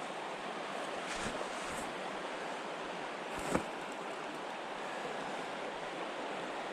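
Steady rush of a mountain stream's flowing water, with a sharp knock about three and a half seconds in and a fainter one about a second in.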